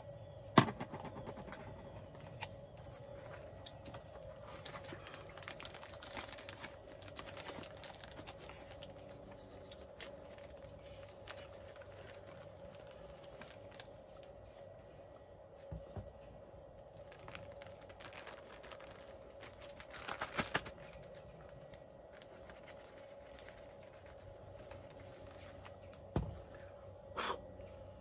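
Plastic bag crinkling, with small clicks and knocks of handling on a table as cornstarch is put into the bag, over a faint steady hum.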